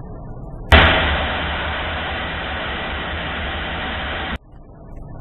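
Loud rush of wind over the ASK 21 glider's outside camera in flight. It starts suddenly about a second in, loudest at first, then holds steady and cuts off sharply near the end.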